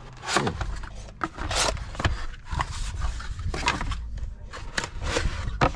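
Cardboard boxes being handled: a run of irregular scrapes and rustles as a packed box is lifted out of its carton and slid onto the cargo floor.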